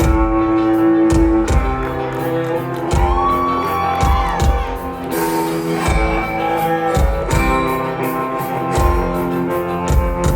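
Live band playing a song's instrumental intro: guitar over a steady beat.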